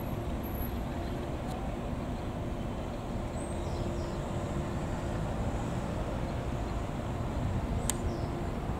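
Steady low rumble of a moving vehicle's road and engine noise, with a faint click about a second and a half in and another near the end.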